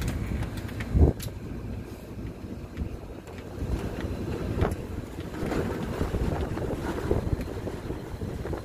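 Sandstorm wind gusting and buffeting the microphone in a steady low rush. There is a loud thump about a second in.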